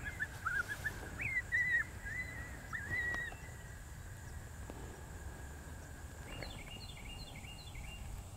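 FoxPro electronic predator call playing an animal distress sound: a string of wavering, squealing cries over the first three seconds, then a faint thin steady note, and a quick run of about four short, high chirps near the end.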